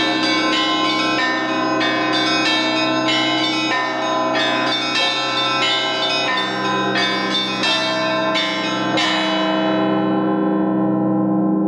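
The bells of the Sretensky Monastery rung by hand in a festive Russian Orthodox peal, many bells of different pitches struck in quick succession. About nine seconds in the striking stops and the bells ring on and fade as the peal ends.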